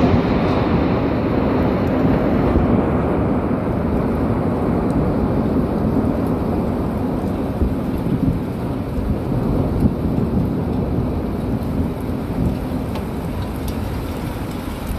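Thunder rolling in a long, deep rumble over steady rain, loudest at the start and slowly fading.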